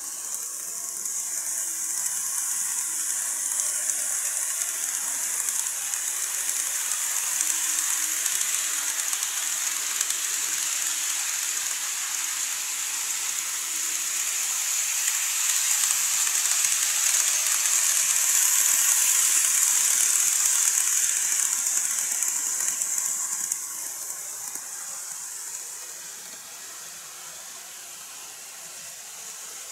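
KATO N-gauge Hankyu model train running on the track: a steady, high-pitched hiss of its small motor and wheels on the rails. It swells as the train passes and drops off about 23 seconds in.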